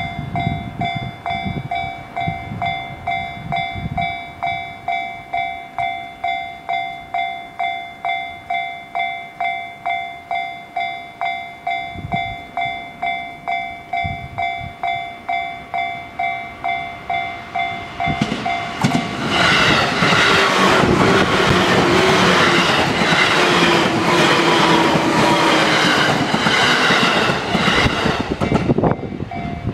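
Japanese level-crossing warning bell sounding, an electronic ding repeated about twice a second. About eighteen seconds in, a JR Yokohama Line 205 series electric train passes close by for about ten seconds, its rolling noise and the clatter of its wheels over the rails drowning the bell. The bell is heard again as the train clears.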